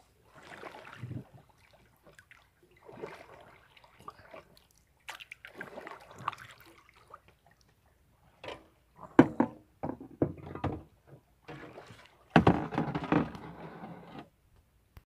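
Sea water splashing and sloshing in irregular bursts from swimming at the surface, loudest about nine and twelve seconds in, stopping about a second before the end.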